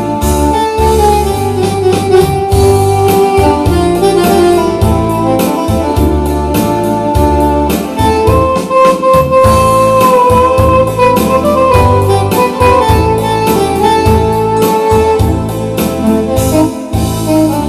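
Instrumental background music: a keyboard melody over a bass line and a steady beat.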